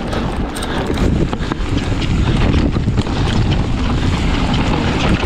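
Wind buffeting the action-camera microphone over the rattle and knocks of a mountain bike riding down a rough, rocky downhill trail.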